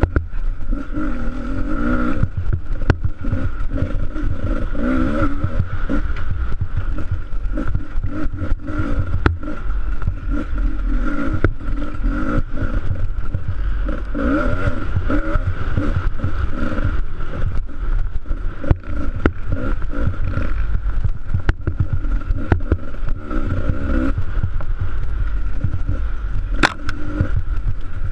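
Dirt bike engine running under load, its revs rising and falling again and again, with frequent sharp knocks and rattles from the rough track.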